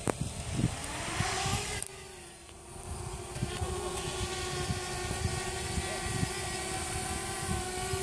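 Parrot Bebop quadcopter's four propeller motors starting up as it lifts off the grass, then a steady buzzing hum as it hovers.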